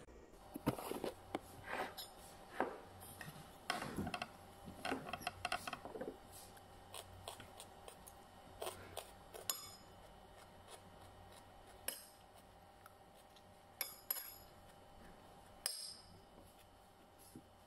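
Metal spoon scraping and clinking on a tray and a ceramic plate as sliced raw bitter melon is scooped onto the plate: a dense run of scrapes and clicks over the first several seconds. After that come single clinks of the spoon against the plate every second or two while eating.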